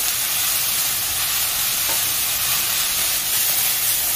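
Chayote shoots and red pepper strips sizzling steadily in a hot nonstick wok as they are stir-fried with a spatula and the wok is tossed. There is a faint knock about two seconds in.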